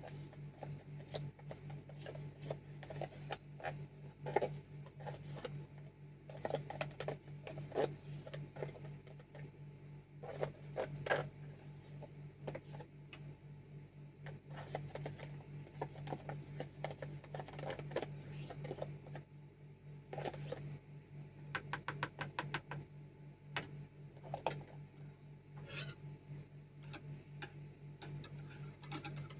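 A spoon scraping cream corn out of a can and clicking against a plastic mixing bowl, then stirring the liquid mix, with irregular taps and scrapes and a quick rattle of ticks about two-thirds of the way in. A steady low hum runs underneath.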